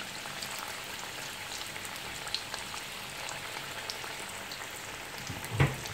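Pastry-wrapped paneer parcels deep-frying in hot oil in a kadai: a steady sizzle with scattered small crackles and pops. A single sharp knock comes near the end.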